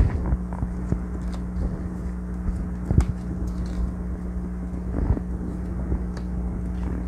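Playing cards being swept up, handled and laid down on a cloth-covered table: a few soft taps and slides, the sharpest about three seconds in, over a steady low hum.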